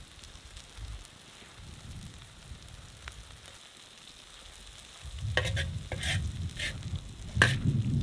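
Vegetables and egg frying in a wide metal pan over a gas burner, with a metal spatula stirring the food. From about five seconds in, the spatula scrapes the pan in several quick strokes over a low rumble.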